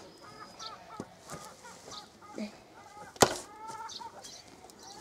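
A single sharp axe blow into a log on a chopping block about three seconds in, the loudest sound, among fainter taps. Chickens cluck before and after the blow.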